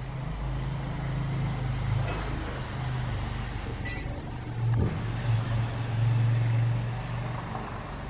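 Low, steady rumble of a motor vehicle's engine, swelling louder about five seconds in, with one short sharp click in the middle.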